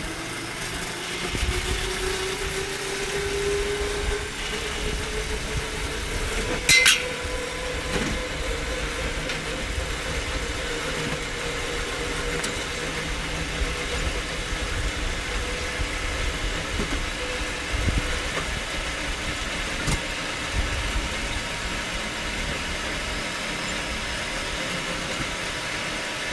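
Motorised rail cart picking up speed: its motor whine rises in pitch over the first six seconds or so, then holds steady over the rumble of its wheels on the steel rails. One sharp clack about seven seconds in.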